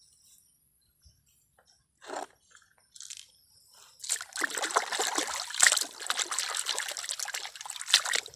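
A hand splashing and sloshing through shallow muddy water, pulling a plastic toy gun out of it. There are a couple of small splashes about two and three seconds in, then continuous splashing from about four seconds in.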